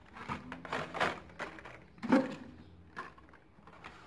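Hot Wheels blister-pack cards, cardboard backing with plastic bubbles, being handled and shuffled by hand: a string of crinkles and taps, with a louder knock about two seconds in.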